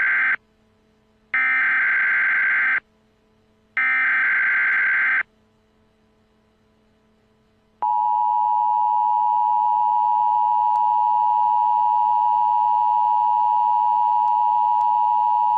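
Emergency Alert System tones: the end of one warbling digital data burst, then two more bursts of about a second and a half each, a second apart. After a pause of about two and a half seconds comes the steady two-tone EAS attention signal.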